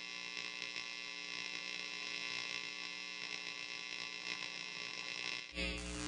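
Steady electric hum with many stacked tones, the opening drone of an experimental sound-art piece. About five and a half seconds in, a louder, deeper layer comes in.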